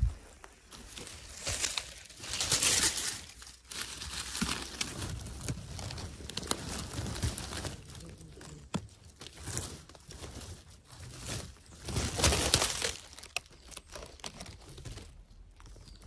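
Dry fallen leaves, twigs and undergrowth rustling and crackling in irregular bursts as someone walks over forest litter and pushes a hand through the brush.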